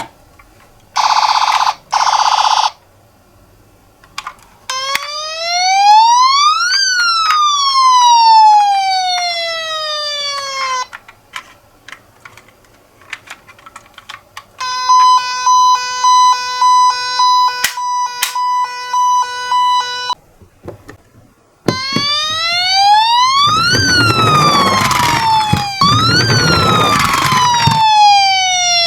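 Toy ambulance's electronic siren cycling through sound patterns: two short buzzes, a slow wail rising and then falling, a string of beeps at one pitch, then the wail again. A loud rattling noise runs under the second wail.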